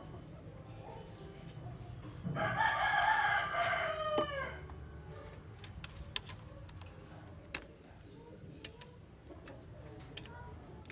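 A rooster crowing once, about two seconds in: one long call that drops in pitch at its end. A few faint sharp clicks follow later.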